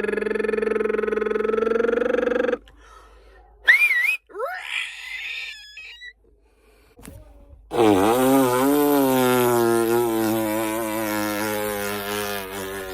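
A person making vocal sound effects: a long held voiced tone, then a short high whistled glide with squeaky noises, then another long wavering voiced tone from about halfway on.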